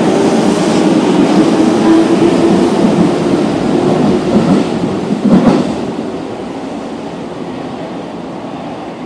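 Subway train pulling out of an underground station and running past the platform, wheels clattering over the rails with a louder clatter about five seconds in, then fading away as the last car leaves.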